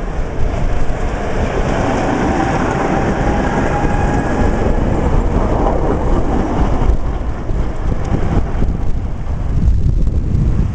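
Tram passing close by on street track, its wheels rumbling and clacking over the rails with a faint whine. The sound is strongest over the first half and eases off after about seven seconds.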